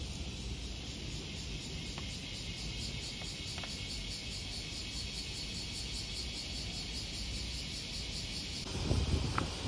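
Steady high, even chirring of insects, with a low background rumble underneath.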